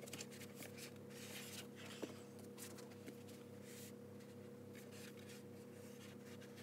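Faint rustling and soft taps of a stack of paperback books being handled and slid onto a shelf, with one sharper tick about two seconds in. A steady low hum runs underneath.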